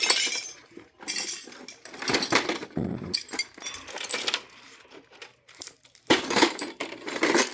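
Broken glass shards and printer debris clinking and rattling as they are handled, in several irregular bursts.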